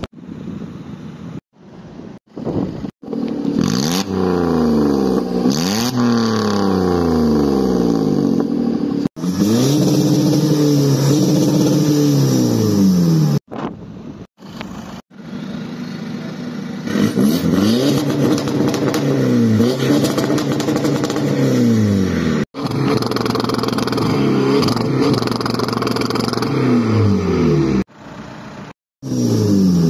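Car engines revved over and over, each throttle blip sending the pitch up and back down, in short stretches that break off abruptly several times.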